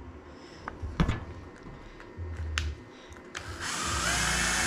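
A few light clicks and knocks, then a power drill starts about three and a half seconds in, its whine rising as it spins up and then running steadily.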